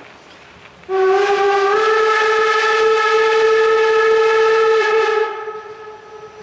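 Steam whistle of narrow-gauge steam locomotive 99 7234-0 blown in one long blast of about four seconds, starting about a second in. Its pitch rises slightly just after it opens, then holds steady until it stops.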